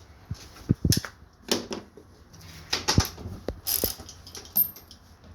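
Ratchet and socket clicking in short, uneven strokes with a few metallic knocks, as the strut's upper mounting nuts are unscrewed.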